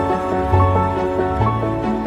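Gentle background music: a melody of held notes over sustained bass notes.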